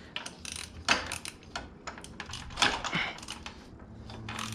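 Ratchet wrench clicking in quick, uneven runs while tightening a new K&N oil filter on a Yamaha R6, with a few louder metal knocks about a second in and around three seconds in.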